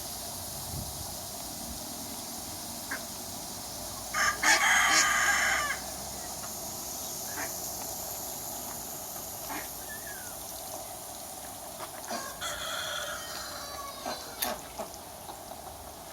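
Rooster crowing twice: a loud crow about four seconds in lasting about a second and a half, and a quieter one about twelve seconds in, with a few short clucks between.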